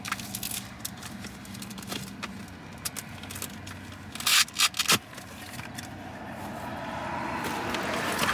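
Scraping, crackling and knocking of a cardboard box and its packaging being handled and opened, with a few loud scrapes about four to five seconds in. A car going by grows louder toward the end.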